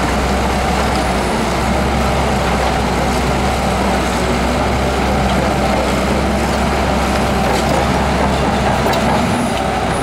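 Shantui DH17 crawler bulldozer's diesel engine running steadily under load as it pushes sand with its blade.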